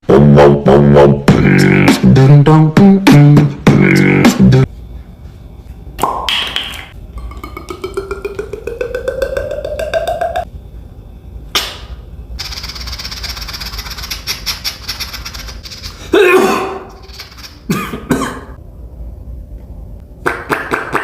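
Beatboxing: a run of mouth-made sound effects. It opens with a loud pulsing bass beat, then sharp clicks, a rising pitched tone, rapid ticks over a hiss, and short swooping sounds, with a rhythmic beat again near the end.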